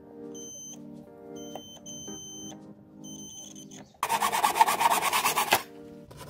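A digital multimeter's continuity buzzer gives four short, high beeps as its probes touch the slip-ring leads, each beep the sign of a closed circuit. About four seconds in, a hacksaw blade rasps quickly back and forth through a clear plastic tube for about a second and a half, the loudest sound.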